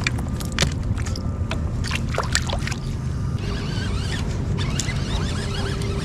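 Steady low rumble of wind and water around a fishing kayak, with scattered sharp clicks and knocks. Faint short high chirps come in about halfway through.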